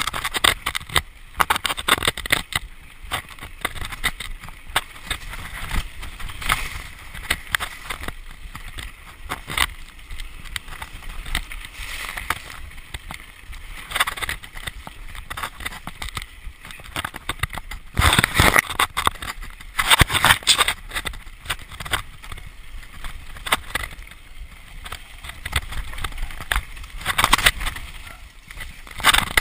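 Mountain bike descending a dirt singletrack at speed, recorded from a camera on the rider: a continuous rattle and clatter of the bike and its tyres over the rough trail, growing louder about two-thirds of the way through and again near the end.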